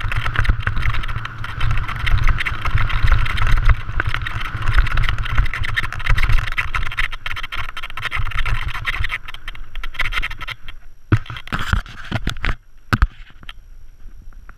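Mountain bike descending a rocky singletrack fast: tyres rattling and crunching over stones, the bike clattering, and wind buffeting the camera microphone with a heavy low rumble. About eleven seconds in it eases off, leaving scattered sharp knocks over a quieter hiss.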